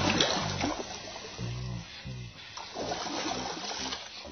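Water splashing as a hooked rohu thrashes at the surface near the bank: a sharp splash at the start, then further splashing about three seconds in, with background music underneath.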